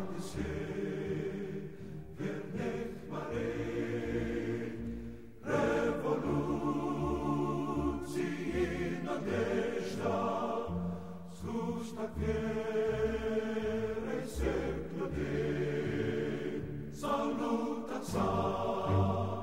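Background music of a choir singing long, sustained chords that change every second or two.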